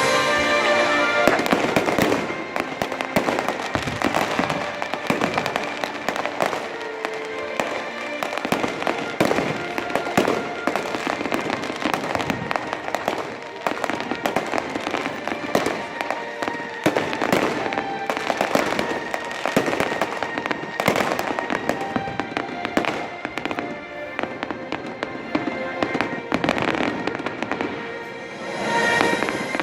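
Aerial fireworks going off in rapid, continuous barrages of bangs and crackles, with music playing underneath. The music is heard most clearly in the first second or two and again near the end, when the bangs thin out.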